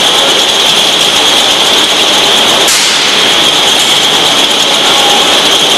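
Pilfer-proof cap making machine running: a loud, steady mechanical whirr with a high whine on top.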